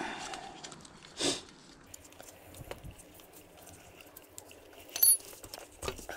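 Metal hand tools such as spanners clinking and knocking: a knock with a short ring at the start, a brief scrape about a second in, and a sharp metallic clink with a high ring about five seconds in.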